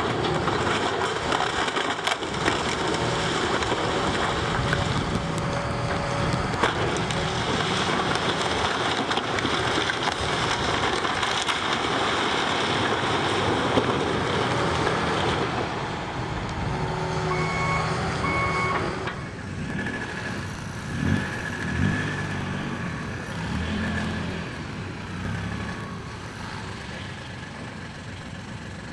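Heavy demolition machinery running while structure and debris are crushed and scraped, with scattered sharp cracks and knocks. After about 19 seconds it gets quieter, with a few thumps and the short beeps of a reversing alarm.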